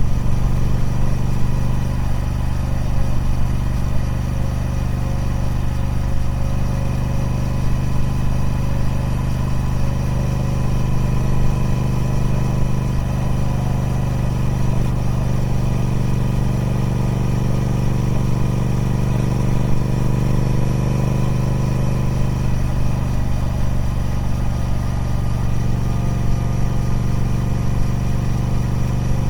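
Triumph Speed Twin 1200's parallel-twin engine running steadily through its stock exhaust, holding an even pitch with only slight shifts.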